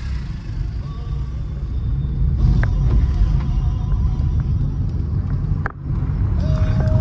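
Steady low rumble of a car's engine and tyres heard from inside the cabin while driving, dipping for an instant a little before the end.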